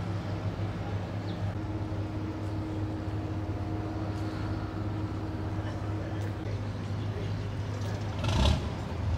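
An engine idling with a steady low hum. A brief loud burst of noise about eight seconds in.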